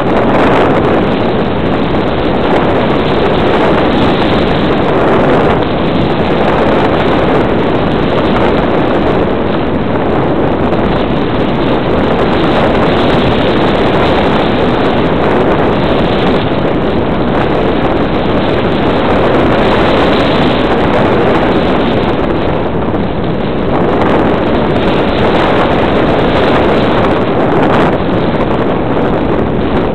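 Loud, steady rush of air and flight noise on the microphone of a camera carried aloft by a small aircraft banking over hills.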